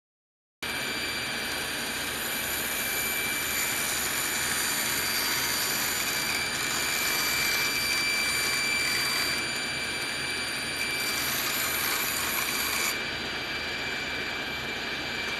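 Woodworking machines, a thickness planer and then a table saw, running and cutting wood: a steady loud whirr with a high whine. The noise drops a little near the end.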